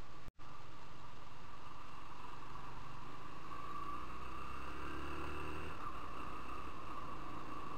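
Motorcycle riding along at a steady pace: continuous engine and road noise, with a deeper engine note swelling for a few seconds in the middle. The sound cuts out for a split second just after the start.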